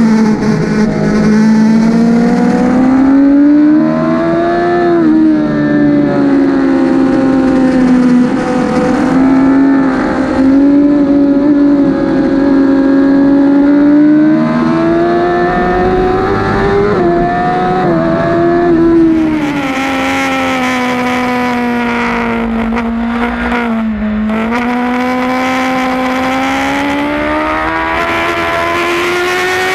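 Suzuki GSX-R1000 (2008) inline-four engine heard onboard at race pace, its revs rising and falling through corners and gear changes. In the second half the pitch holds steadier under a louder rush of wind.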